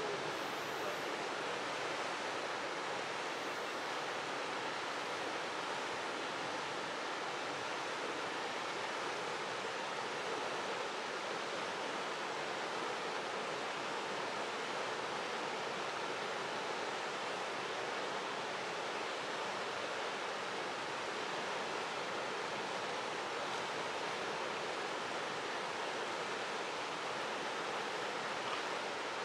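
Rushing river water, a steady, even hiss with no breaks.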